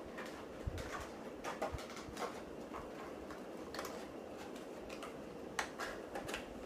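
Funko Pop vinyl figure packaging being handled: scattered light clicks and taps of the cardboard box and plastic insert, coming a few at a time with short gaps.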